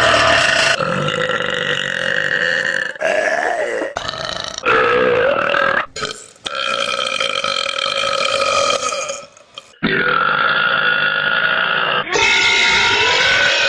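A run of long, drawn-out women's burps spliced one after another with abrupt cuts between them, about seven in all. Each holds a fairly steady pitch, the longest for two to three seconds.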